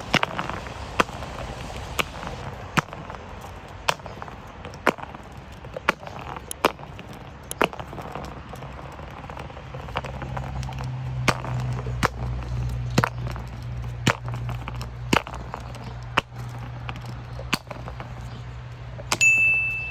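Glass bottles knocking as they roll and bump down stairs: sharp single knocks, about one every half second to a second. A low steady hum comes in about halfway.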